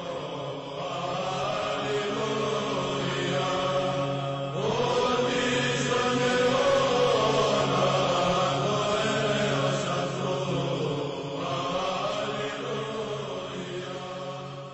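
Background music: slow chanted singing in long held phrases over a steady low drone, the melody shifting about four and a half seconds in and again near eleven seconds.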